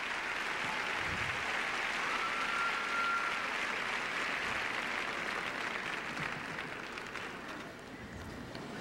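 Arena crowd applauding steadily, easing off slightly near the end.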